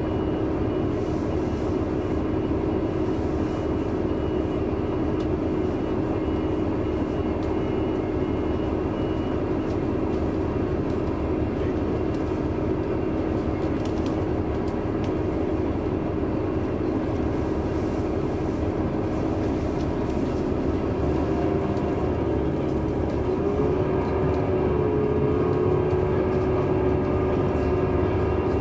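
A 2003 Neoplan AN459 articulated bus with a Caterpillar C9 ACERT diesel engine running, heard from on board, with a steady whine over the engine rumble. About three-quarters of the way through, the whine wavers and rises slightly in pitch, and the sound grows a little louder.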